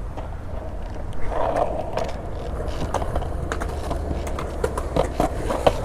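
Skateboard wheels rolling over concrete: a steady low rumble with scattered clicks from seams and cracks.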